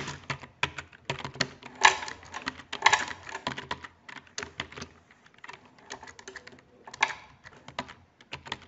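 Typing on a computer keyboard: rapid runs of key clicks, thinning to scattered taps in the second half.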